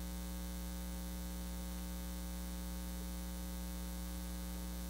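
Steady electrical mains hum: a low, unchanging buzz with a ladder of higher overtones.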